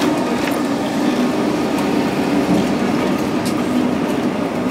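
An old Lisbon tram heard from inside the car as it runs along the rails: a steady rumble with a hum from the running gear, and a few light clicks and rattles.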